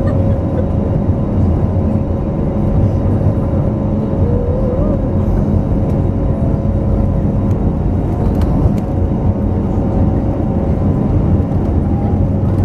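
Steady engine drone and rumble inside the cabin of an Airbus A321neo airliner as it taxis and lines up on the runway before take-off, with a faint steady hum over the low roar.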